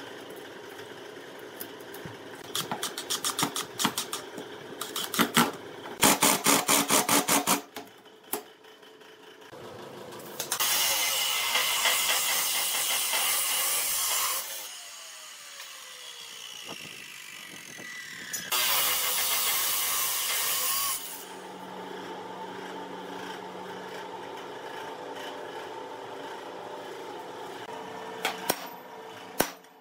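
Abrasive chop saw cutting steel angle iron: two cuts of a few seconds each, with a falling whine between them as the disc spins down. Before the cuts comes a burst of loud rapid clicking, and near the end a few light taps.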